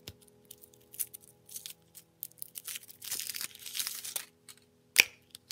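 Foil wrapper being peeled off a chocolate surprise egg by hand, crinkling and tearing in irregular bursts, busiest from about three to four and a half seconds in, with one sharp click near the end.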